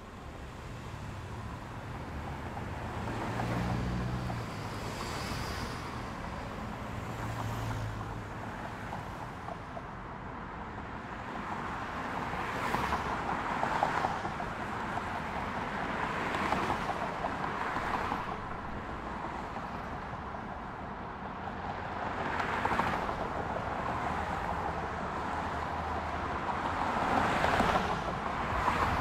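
Highway traffic: a steady wash of tyre and engine noise with cars swishing past one after another, coming more often in the second half. A low engine hum swells twice in the first several seconds.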